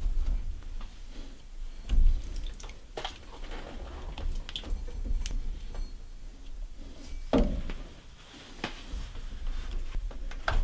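Scattered clicks, knocks and squishy handling sounds of rubber hoses and spring clamps being worked on and off a washing machine's fill valve, with a sharper knock about two seconds in and another past seven seconds.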